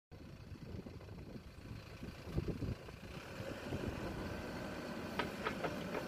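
Diesel engine of a Mahindra EarthMaster VX backhoe loader running while it digs with the backhoe arm: a low rumble that grows steadily louder, with a few sharp clicks near the end.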